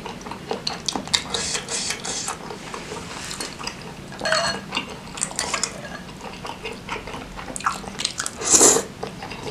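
Close-miked eating of seblak in spicy broth: a metal fork clinks and scrapes against a glass bowl, with wet chewing, and near the end a loud slurp as a forkful of noodles goes into the mouth.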